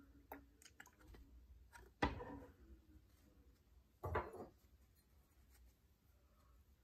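Two dull knocks about two seconds apart as a plastic rubbing-alcohol bottle is handled and set down on a wooden tabletop, with a few faint small clicks before them.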